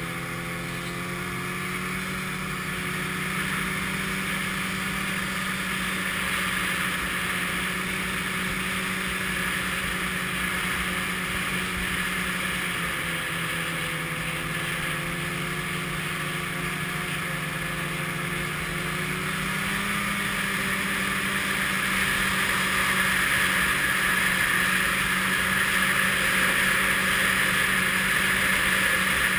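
Snowmobile engine running steadily at speed, heard close up, under a constant rushing noise from the ride. The engine pitch sags and comes back up about halfway through, and the rushing gets louder over the last several seconds.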